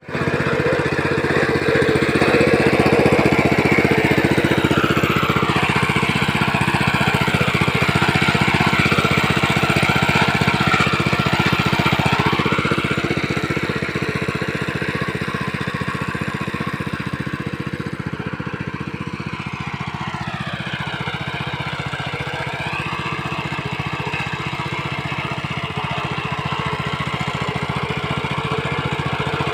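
Mini tractor's small engine running steadily, a little quieter about two-thirds of the way through and building again near the end.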